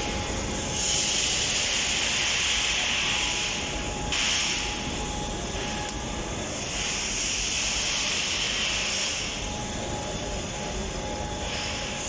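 Furnace-oil burner and its blower firing into an empty steel ladle to preheat it: a steady rushing roar with a strong hiss that swells and eases several times, over a faint steady hum.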